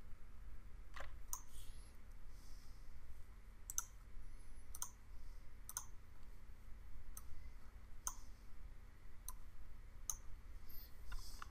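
Computer mouse button clicking: about ten single sharp clicks at irregular spacing, roughly one a second, over a faint low hum.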